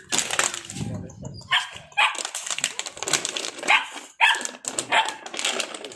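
Belgian Malinois puppies barking: about five short, high-pitched yaps spread over several seconds.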